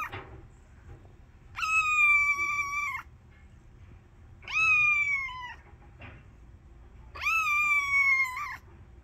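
Kitten meowing three times, each a long, high call of about a second that rises quickly and then slides gently down.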